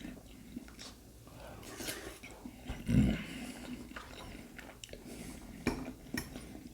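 Close-up eating sounds: biting and chewing fried food, with scattered crunches, and one short, loud, low vocal sound about three seconds in.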